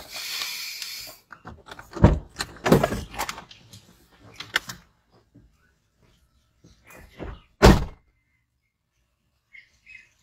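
A hand rubbing over the phone's microphone as the phone is set down, then a series of thumps and knocks inside a car with its door open. The loudest thumps come about two seconds in and near eight seconds.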